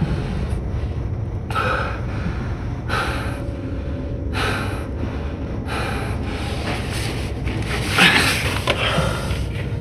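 A man breathing hard with exertion as he crawls through a narrow duct: airy breaths about every second and a half over a low steady rumble, with a louder, heavier breath about eight seconds in.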